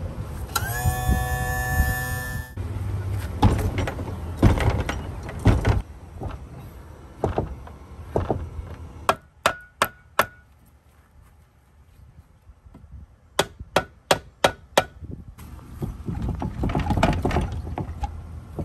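Hammer blows on a wooden block held against a Honda outboard's lower unit, knocking the stuck housing loose from the midsection: sharp wood-on-metal strikes, one run of about four and, after a short pause, about six more, with heavier knocks earlier. A brief steady pitched tone sounds near the start.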